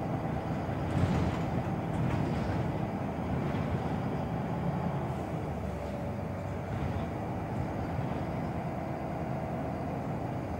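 Scania Wright Solar single-deck bus heard from inside the saloon while driving: a steady engine drone with rattling from the body and fittings. There is a louder knock about a second in and a faint whine in the second half.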